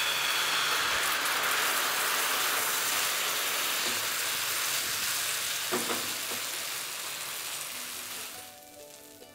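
Thin palm-fruit and rice-flour batter, freshly poured, sizzling in a hot oiled non-stick frying pan. The steady sizzle fades away near the end as background music comes in, with a single light knock about six seconds in.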